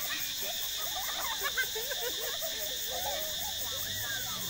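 Insects buzzing steadily in a high-pitched drone, with many short faint children's shouts and chatter scattered through it.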